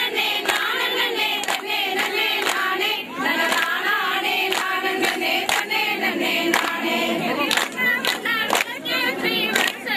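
A group of women singing a folk song together, with sharp hand claps keeping an even beat about twice a second, as in a Tamil kummi clapping dance.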